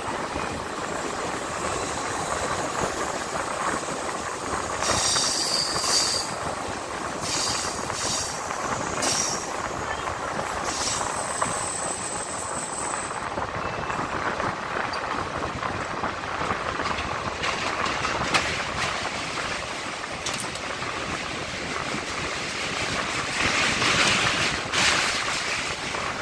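Passenger train's coaches running across a steel truss bridge, heard from the open doorway: a steady rumble and rattle of wheels on the rails. A few short high-pitched sounds come through between about five and eleven seconds in, and it grows louder for a moment near the end.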